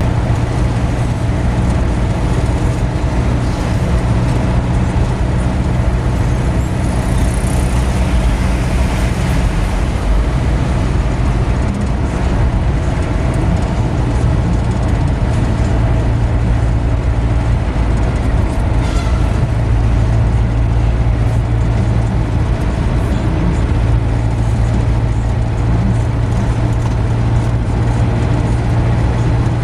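Steady engine and tyre-on-road drone heard inside a moving car's cabin, with a constant low hum.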